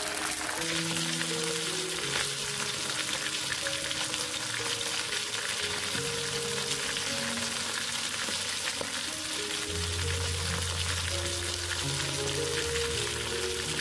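Starch-coated pieces of semi-dried pollock deep-frying in hot oil in a wok: a steady, dense crackling sizzle.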